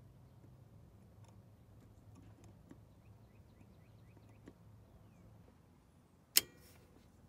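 Quiet background with a few faint ticks and faint bird chirps. Near the end comes one sharp metallic click with a brief ring, as locking pliers grip the carburetor's stuck main jet.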